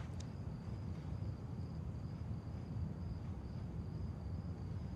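Crickets chirping in a steady high trill, over a low background rumble.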